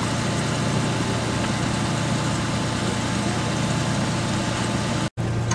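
Ride-on miniature diesel-outline locomotive's engine idling steadily, a constant low hum. The sound breaks off for an instant near the end.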